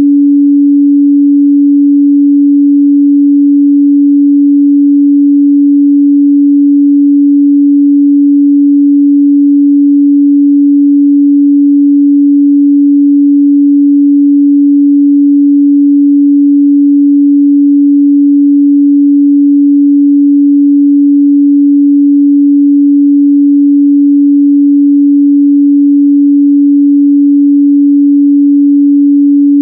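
A steady, loud pure sine-wave test tone at 285 Hz, held unchanged, used to check how a speaker or headphones reproduce the midrange.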